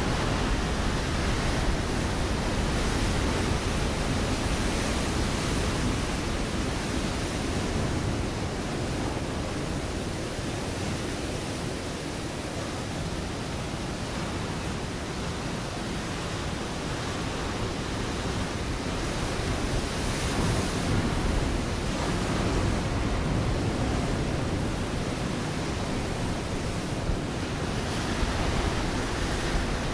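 Ocean waves breaking on a rocky shore: a continuous rushing wash of surf that swells and eases slowly, with a stronger surge about two-thirds of the way through.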